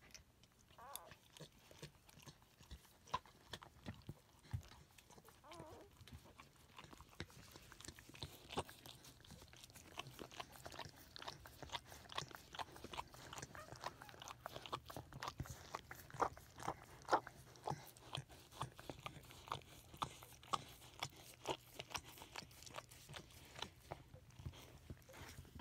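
Pembroke Welsh Corgi mother licking her newborn puppy: a run of irregular smacking clicks, sparse at first and coming several a second from about eight seconds in.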